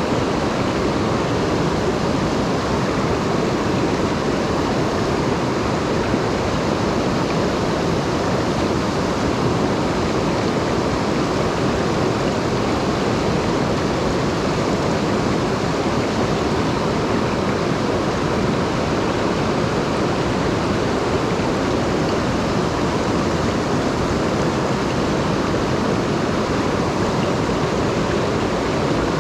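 Mountain stream swollen with rain, its water rushing steadily with an even, unbroken noise.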